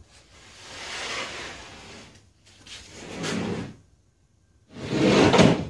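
A large sheet of plywood being slid and shifted, three scraping, sliding swishes, the last one the loudest, near the end.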